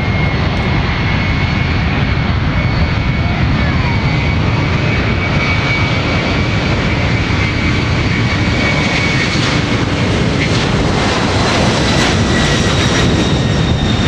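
Boeing 767-300's twin turbofan engines at takeoff thrust during the takeoff roll: a loud, steady roar with a high fan whine held at one pitch. In the last few seconds the roar turns crackly as the aircraft passes close by.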